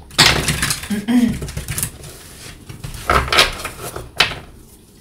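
A tarot deck being shuffled and handled, in several rustling bursts, with a sharp tap about four seconds in.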